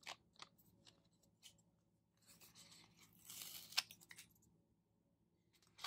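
Faint rustling of paper and sticker sheets being handled, with a few soft clicks and taps, a sharper tick after the second rustle.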